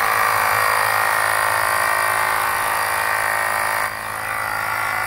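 Portable rechargeable tyre inflator's small electric compressor switching on abruptly and running with a loud, steady buzz as it pumps air into a car tyre, heading for its preset 32 psi; its level dips briefly just before four seconds in.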